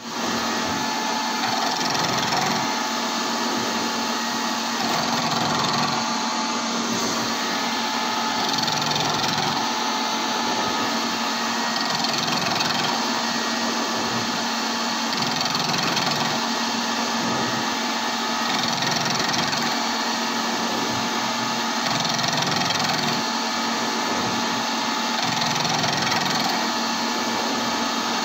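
End mill cutting a counterbore in a metal workpiece on a CNC milling machine: a steady, grating cutting noise over a constant machine hum.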